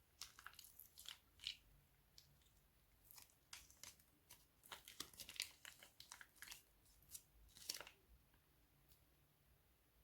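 Irregular clusters of short, sharp crinkling and crackling sounds from hands working slime and plastic piping bags, quiet at the end.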